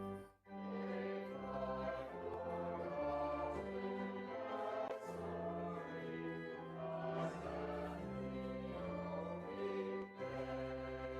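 Choir singing slow, sustained chords with organ accompaniment, the long bass notes changing every second or so; the music breaks off briefly about half a second in and again near the end.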